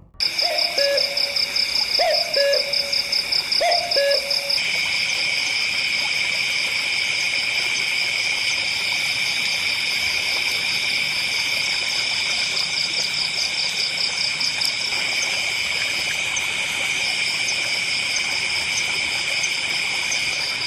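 Night forest ambience: insects trilling steadily in high, rapidly pulsing tones. An owl hoots three times in the first few seconds.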